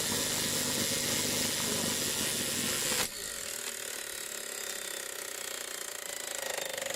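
Washing machine running with a loud mechanical rattle. It drops off suddenly about three seconds in, leaving a quieter, continuing rattle.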